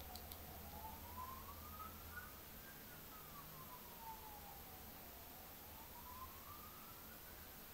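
Faint siren wailing slowly up and down. It rises for about two and a half seconds, falls for as long, then rises again near the end.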